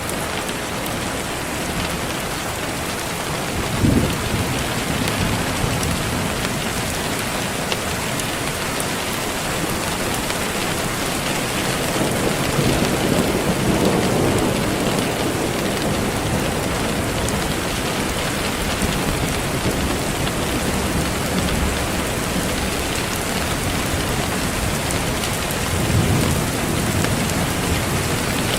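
Steady rain falling, a continuous even hiss, with low rumbles of thunder swelling about four seconds in, again around the middle, and near the end.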